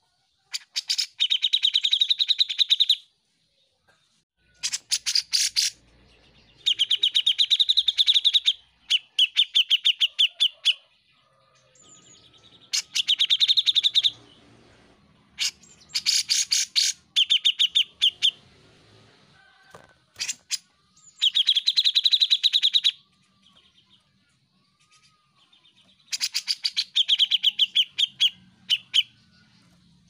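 Grey-cheeked bulbul (cucak jenggot) singing in full voice: repeated loud phrases of fast, stuttering chattering notes, each lasting a second or two, with short pauses between.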